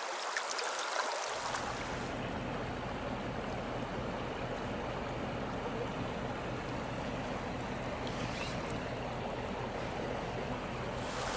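Flowing stream water heard through a camera dipped under the surface: a steady wash that turns low and muffled from about a second in until near the end.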